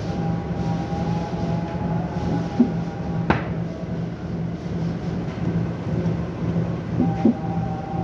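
Heavy plaster casting moulds being lifted apart and handled, with one sharp knock about three seconds in and a few softer knocks, over a steady low machine hum.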